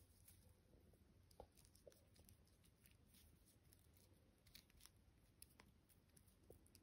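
Near silence: a few faint ticks and rustles of fingers working a knot in cord strung with beads.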